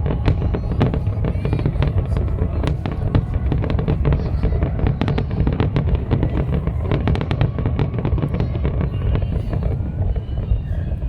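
A fireworks display going off without pause: many sharp cracks and bangs, several a second, over a dense low rumble of booming shells.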